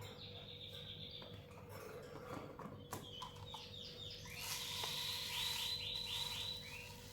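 Pet lovebird chirping: short repeated chirps, with a quick run of them, the loudest part, a little past the middle.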